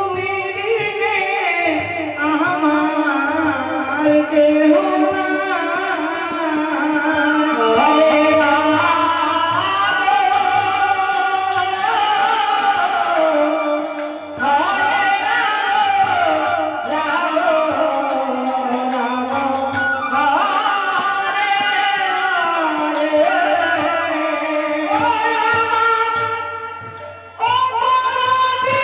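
A woman singing a Bengali devotional kirtan song in a gliding, ornamented melody over harmonium and drum accompaniment. The music breaks off briefly near the end, then starts again.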